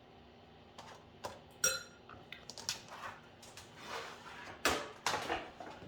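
Kitchenware being handled: dishes and metal utensils clinking and knocking in irregular bursts, with one ringing metallic clink about 1.7 s in and the loudest knocks near the end.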